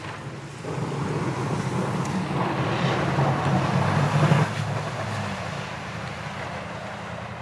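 Pickup truck engine running under load while it pushes snow with a front-mounted Boss plow, along with the rushing scrape of the blade through the snow. It builds about half a second in, is loudest around four and a half seconds in, then eases off.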